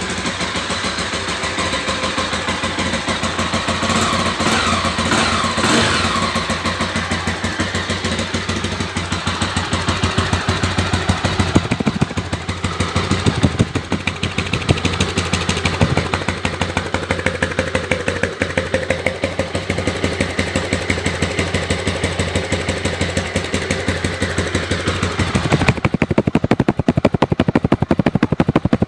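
Honda CBX 250 Twister's single-cylinder four-stroke engine running with a steady beat, rising briefly about four to six seconds in. It has an engine noise that the owner is showing. Near the end the hiss drops away and the separate, sharp firing beats stand out.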